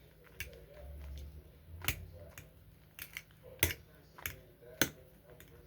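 Freshly made shampoo slime being squeezed and handled, giving a series of sharp, irregular clicks and pops.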